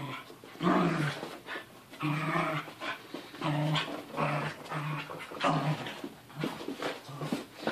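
Two dogs play-wrestling, with a run of short, low play growls and grunts, about ten of them in quick succession.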